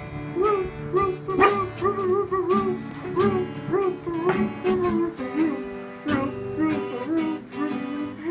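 Acoustic guitar strummed in a steady rhythm. Over it a Weimaraner puppy sings along in a run of short whining notes, each rising and falling in pitch, about two a second.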